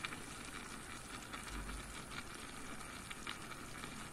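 Pot of dal and spinach simmering on a gas stove: a steady faint hiss of boiling with small scattered ticks of bubbling.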